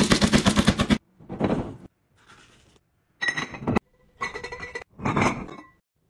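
Small laundry scent-booster beads pouring into a glass jar: a dense rapid rattle for about the first second, then several short separate bursts of beads and glass clinking.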